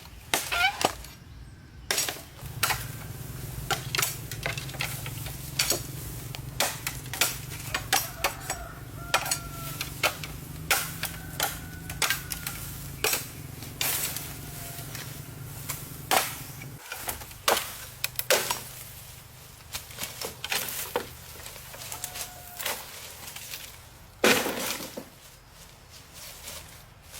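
Irregular sharp knocks and clinks of hard objects striking one another, as in hands-on building work. A steady low hum runs under them and stops about two-thirds of the way through.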